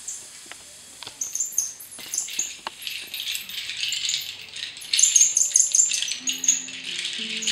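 Cactus-wood rainstick rattling: a dense trickling patter of small grains inside the tube, starting about a second in and swelling to its loudest past the middle. Near the end a few low held notes of music begin under it.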